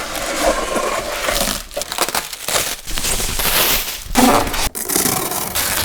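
Loud, dense crinkling and crushing noise, broken by a few short pauses.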